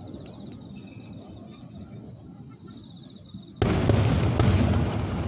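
Fireworks: quiet while the shells climb, then about three and a half seconds in, a large aerial shell bursts with a sudden loud boom that keeps rumbling, with a few sharp cracks in it.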